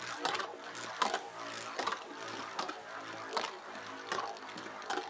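Two Beyblade tops spinning in a clear plastic stadium, making a steady whirring hum. A brief sharp scrape or tick comes about every three quarters of a second as the travelling bey runs across the plastic.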